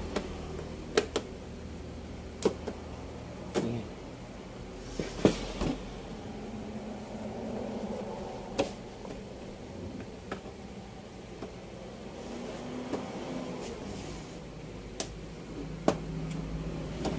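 Plastic frame clips of an LED TV's panel snapping loose one at a time as the edge is pried apart: about ten sharp clicks, a second or several apart.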